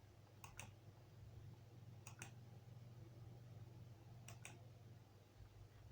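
Near silence with a low steady hum and three faint double clicks, about two seconds apart.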